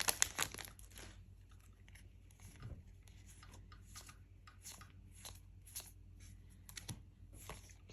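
A foil booster pack wrapper crinkling briefly, then faint scattered flicks and taps of trading cards being leafed through one by one.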